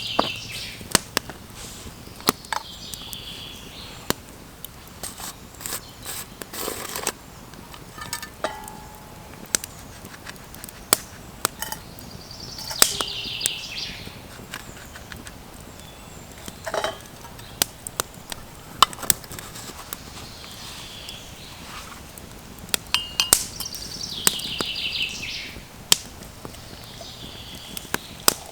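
Wood fire crackling with sharp, irregular snaps, while a songbird repeats a high, descending trilled phrase about every eleven seconds.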